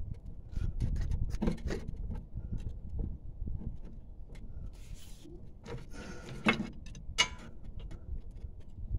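Ratchet and long socket extension working on the brake caliper bracket bolts: irregular metallic clicks and scrapes, with two louder clanks about six and seven seconds in.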